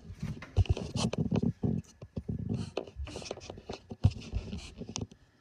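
Hands rubbing, scraping and tapping on a laptop and on the handheld camera, with a few heavy bumps of handling noise on the microphone.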